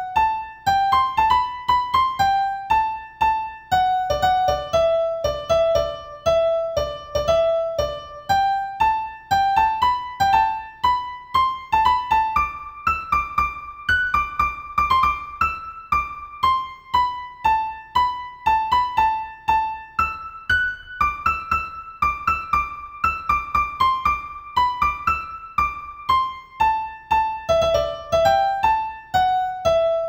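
Piano-style keyboard music: a simple melody of single notes, each struck and fading, over a low bass line.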